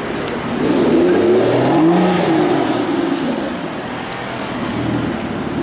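Aston Martin DBS's V12 engine blipped once from idle: the note rises for about a second, then falls back to a steady idle.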